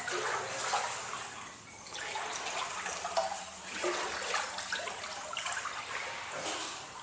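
Floodwater sloshing and splashing in uneven surges.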